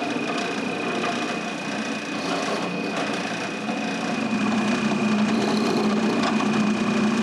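Drill press running and boring holes into a wooden post: a steady motor hum with a constant high whine, the lower hum growing stronger about halfway through.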